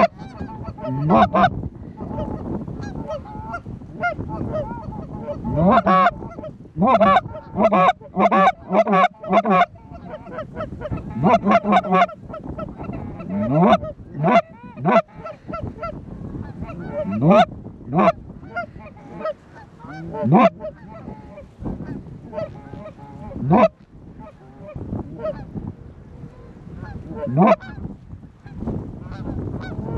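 Goose calls blown close by, calling to geese overhead: loud honks and clucks, several in fast strings near the start, then single notes that rise in pitch.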